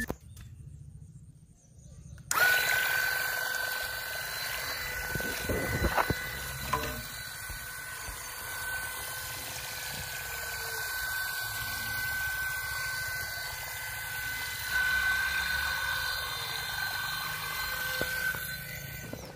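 Small DC motor of a homemade plastic-bottle boat running at a steady high whine, which cuts in suddenly about two seconds in. A couple of light knocks come around six seconds in.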